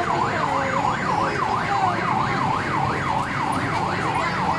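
Electronic siren in yelp mode, its pitch sweeping rapidly up and down about three times a second without a break.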